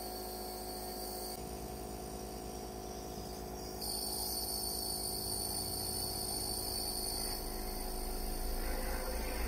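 Nebulizer compressor running with a steady high-pitched buzz and hum, the air-and-mist hiss growing louder about four seconds in as the medication cup is brought up to the cat's face.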